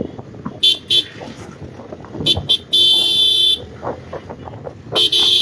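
Vehicle horn honking in short toots: two quick ones, two more, then a long blast of almost a second, and another honk near the end. Under it runs the low rumble of a moving motorcycle.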